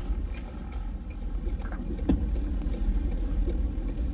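A vehicle driving, heard as a steady low road and engine rumble, with a sharp knock about two seconds in.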